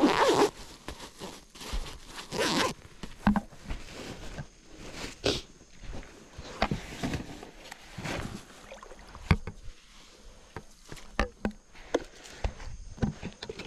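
Zipper on a fabric gear bag pulled shut in two long strokes near the start, followed by rustling and scattered knocks and clicks as gear is handled and set on a plastic kayak.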